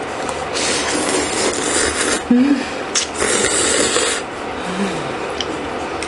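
Thin wheat noodles (somyeon) being slurped up noisily from chopsticks, in two long hissing slurps, the first about half a second in and the second about three seconds in.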